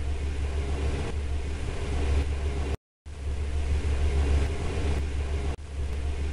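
Car driving: a steady low engine-and-road rumble that cuts to silence for a moment about three seconds in, then starts again.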